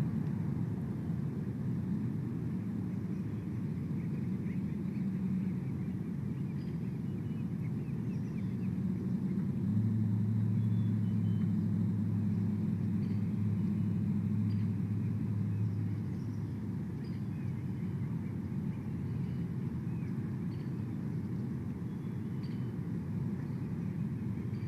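A distant engine's low rumble that swells into a steady hum for several seconds near the middle, then fades back, with a few faint high chirps above it.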